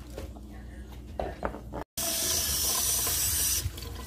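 Kitchen tap running onto celery stalks held in a stainless steel sink: a steady hiss of water that starts about two seconds in. Before it, a few light knocks from knife and cutting-board work.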